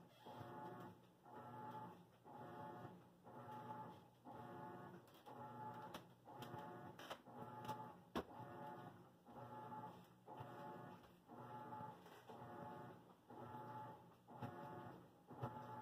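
Washing machine agitating, heard faintly: a motor whir that comes and goes in regular strokes, a little more than one a second, with a few faint clicks midway.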